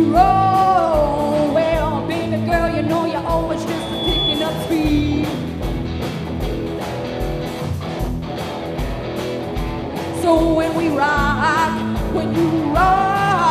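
Live rock band playing with electric guitars, bass and drums under a steady beat. A woman's lead vocal is heard at the start and again in the last few seconds, with a mostly instrumental stretch between.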